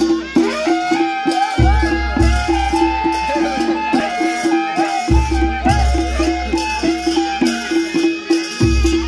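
Nepali panche baja music: a wavering reed melody over drums and cymbals in a steady, repeating dance rhythm.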